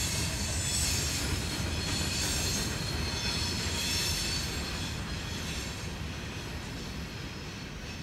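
Empty rock hopper cars of a freight train rolling past on curved track, the wheels rumbling on the rails with a high wavering wheel squeal. The squeal fades over the last few seconds and the train sound slowly gets quieter.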